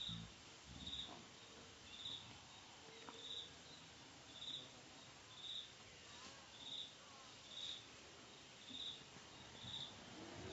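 Faint cricket chirping: a short, high chirp repeating steadily about once a second.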